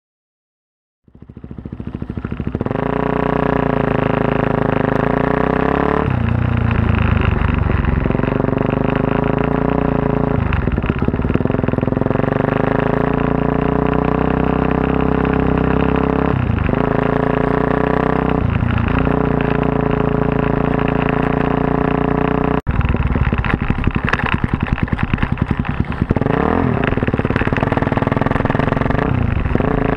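Single-cylinder four-stroke engine of a Suzuki DR-Z400S bored out to 440 with a full Yoshimura off-road exhaust, starting up loud about a second in and running under way at fairly steady revs, the revs dipping briefly and picking up again several times.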